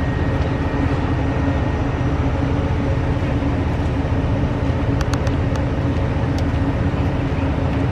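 Steady engine and road rumble heard from inside a moving vehicle, with a constant hum and a few light clicks about five to six and a half seconds in.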